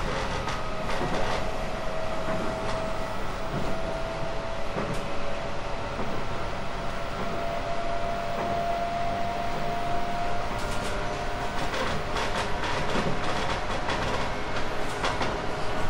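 JR East 719 series electric multiple unit under way: steady rolling rumble of the wheels on the rails, with a faint whine that rises slowly in pitch. A cluster of sharp clicks and knocks from the running gear comes in the last few seconds.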